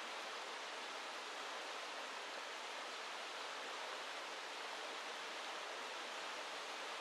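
Steady rush of a small river running over rocks and riffles, an even hiss without breaks.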